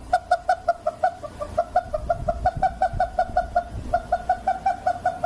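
Rubber chicken toy squeaking in a fast, even series of short honks, about five a second.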